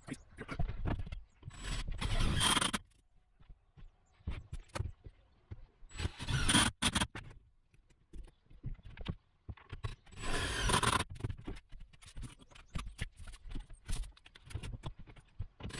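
Cordless drill driving self-drilling wood-to-steel screws through plywood bed boards into the metal frame: three short runs of about a second each, roughly four seconds apart, with knocks and handling clicks between them.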